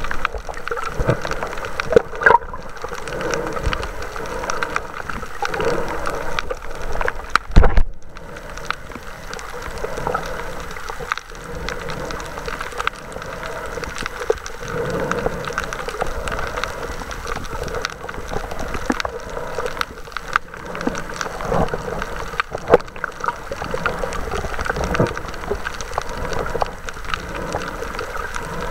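Muffled water noise picked up by a camera held underwater on a reef, with a steady wash and scattered small clicks and knocks, and one louder thump about eight seconds in.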